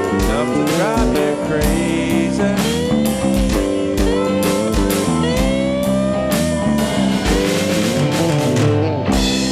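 Instrumental break of a blues-rock song: a lead guitar plays lines of bent, gliding notes over bass and drums.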